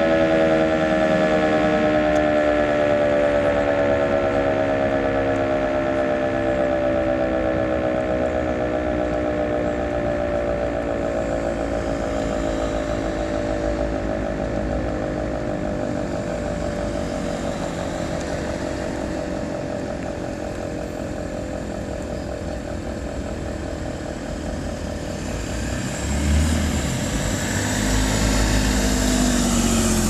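Civil-defence siren on a tower roof winding down at the end of a test signal: its tone falls slowly in pitch and fades away over the first half, leaving street traffic noise. A car passes close near the end.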